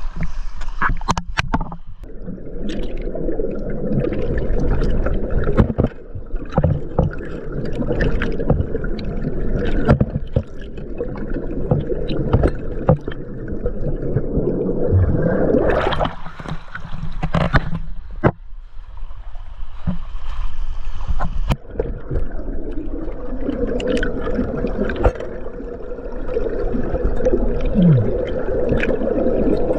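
Water gurgling and sloshing close to the microphone, with many scattered knocks and clicks.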